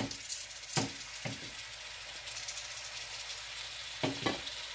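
Diced onions sizzling in oil in a frying pan, a steady hiss, with a few short knocks, two of them close together near the end.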